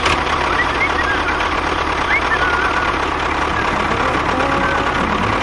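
Small motor of a homemade mini construction vehicle running steadily with an even low hum.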